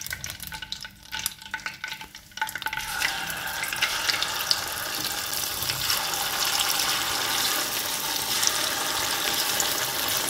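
Coated chicken pieces deep-frying in hot mustard oil in a kadhai. Scattered crackling for the first couple of seconds, then, as more pieces go in, a dense, steady sizzle from about two and a half seconds in.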